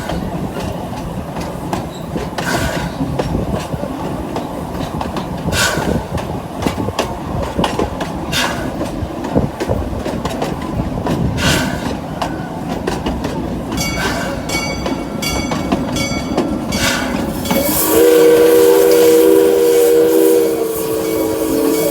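Park steam train running along the track: a steady rumble of the rolling cars with a clack from the rail joints every few seconds. About eighteen seconds in, the locomotive's steam whistle starts, a steady chord of several notes held to the end.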